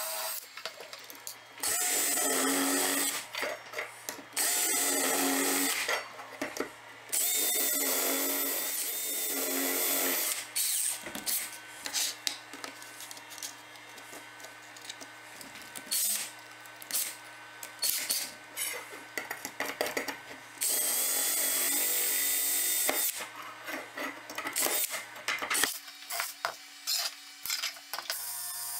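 Cordless drill boring into aluminium track profiles, running in several bursts of a few seconds each with a steady motor whine. Between the bursts come scattered clicks and rattles of drill bits and tools being handled.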